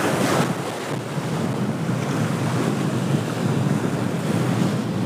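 Surf breaking and washing against the boulders of a rock jetty, mixed with wind rumbling on the microphone; a slightly stronger surge comes right at the start.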